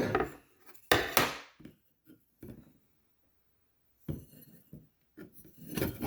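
Steel and friction clutch plates from a Powerglide transmission being lifted out and set down on the bench: scattered metal clinks and knocks, the loudest about a second in, with a short pause in the middle before more clatter.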